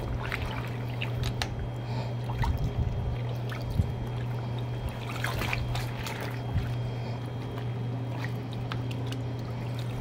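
Water sloshing and trickling as wet clothes are pressed down and swished by hand in a plastic tub of fabric-softener rinse water, with irregular small splashes. A steady low hum runs underneath.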